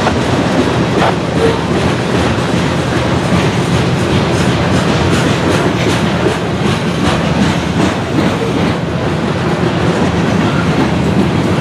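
Freight train of covered hopper cars rolling past close by: a loud, steady rumble of steel wheels on rail, with scattered wheel clicks over the rail joints.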